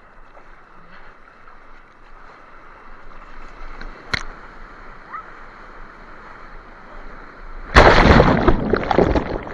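Sea water washing and sloshing around a surfer in the water, then a loud rush of splashing water for about a second and a half near the end, with a single sharp click about four seconds in.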